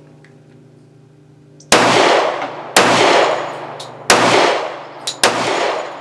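Sig P320 X-Ten 10mm pistol firing 200-grain hard-cast bear loads: four shots about a second apart, starting a little under two seconds in. The pistol cycles each round without a malfunction.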